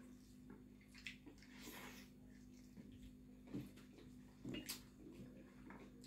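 Faint eating sounds: chewing and smacking, with scattered small clicks of fingers working rice and chicken on steel plates, over a low steady hum.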